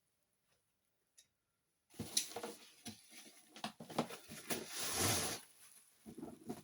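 Almost silent for about two seconds, then cardboard and plastic packaging being handled and unwrapped: irregular rustling, crinkling and knocking, with a longer, louder rustle a little after the middle.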